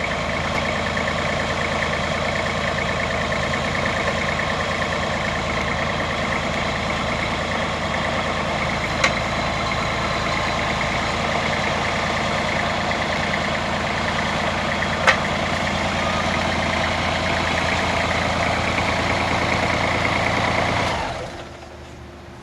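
Engine of a Ditch Witch XT850 excavator tool carrier running steadily, with two sharp knocks partway through. The engine sound stops about a second before the end.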